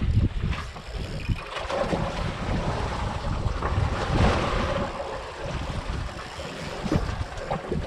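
Wind buffeting the microphone in uneven gusts over waves washing around a small fishing boat in choppy sea.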